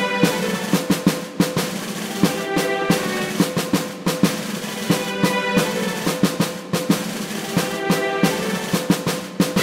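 Music with busy, rapid drumming over held pitched notes.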